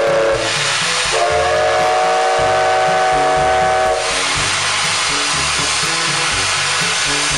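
Steam locomotive's whistle blowing over a loud, steady hiss of escaping steam. One whistle note ends just after the start, and a second, higher blast sounds from about a second in to about four seconds in, while the steam hiss carries on until near the end.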